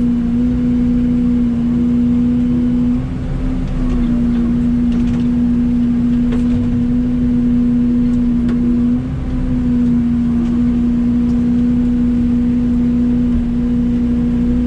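Mini excavator's diesel engine running steadily at working speed while digging, its note and level dipping briefly twice, with a few faint clicks and knocks.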